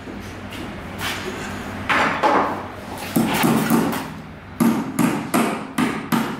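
Claw hammer driving nails into the timber brace of a plywood shuttering form: about a dozen sharp blows in quick runs of three or four.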